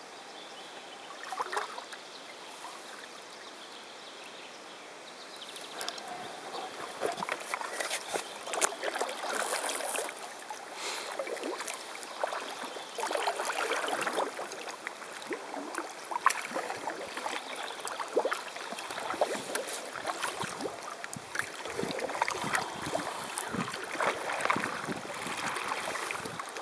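Double-bladed kayak paddle dipping and pulling through calm water, with irregular splashes and drips off the blades. The first few seconds are quieter, and the paddling splashes set in about six seconds in.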